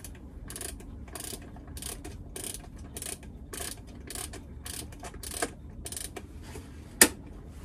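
A Smiths mechanical clock being wound by hand: its winding ratchet clicks in short strokes, about two a second. A single sharp click comes near the end.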